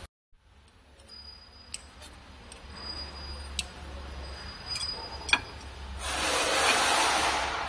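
Light metallic clicks and knocks as the slitter scorer's stainless-steel blade holders are handled and pushed along their rail, over a low hum. About six seconds in, a loud steady rushing noise sets in.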